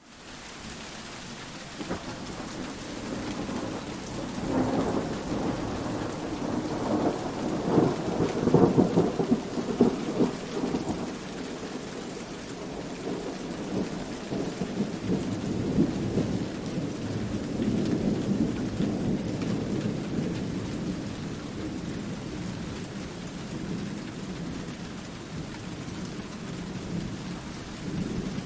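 Steady rain with rolling thunder, fading in at the start; the rumble swells loudest about eight to ten seconds in and again more softly later.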